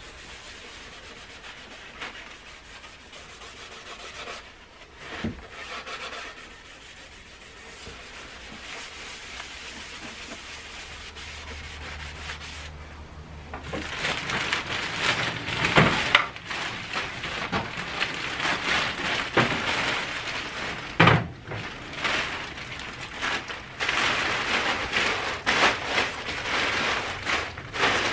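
Quiet rubbing and scraping at first. From about halfway, louder crackling and rustling of plastic dust sheeting being lifted and crumpled into a bundle, with a few sharp crackles.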